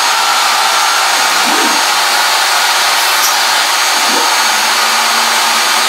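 CNC router table running a fast dry-run toolpath: a steady, loud motor whir, with the stepper motors' whine sweeping up and down in pitch twice as the axes speed up and slow down.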